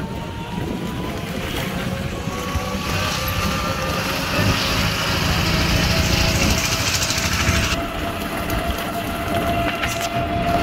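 Riding on a rickshaw through town traffic: steady vehicle rumble with a faint whine that rises slowly in pitch. A hiss comes in about two and a half seconds in and cuts off suddenly near eight seconds.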